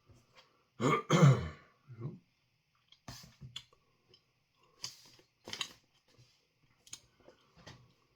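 A man coughing and clearing his throat in a string of short bursts, the loudest about a second in: a coughing fit brought on by the powdery dust of a freeze-dried chilli ice cream sandwich.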